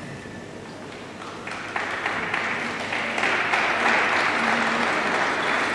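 Arena audience applauding, starting about a second and a half in and swelling.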